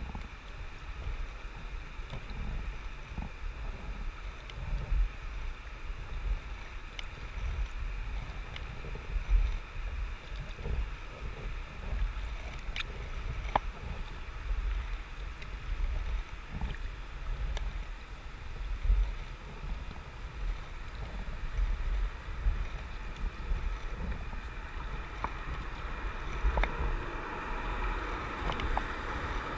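Kayak being paddled on a river: an uneven low rumble of wind on the microphone over a steady rush of water, with a few light knocks and splashes now and then.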